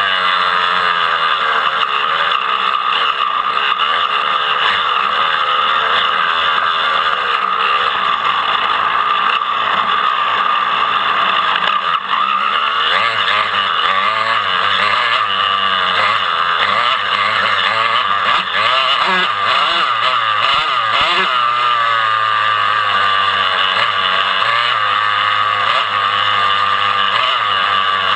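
Dirt bike engines racing, revving up and down continuously, with several engines overlapping.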